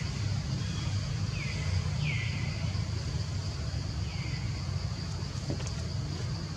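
Steady low rumble of distant road traffic under a steady high insect hum. A few short whistled calls fall in pitch, about one and a half, two and four seconds in.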